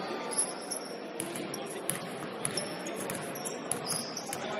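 Basketball game sounds in a gym: a ball bouncing on the court in scattered knocks, with short high squeaks, over echoing voices.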